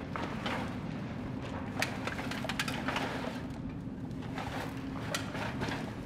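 A low steady drone with scattered light clicks and crackles.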